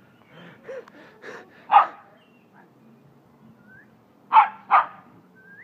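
Dog barking in short single barks: a few quieter barks building to a loud one in the first two seconds, then two loud barks in quick succession a little past the middle.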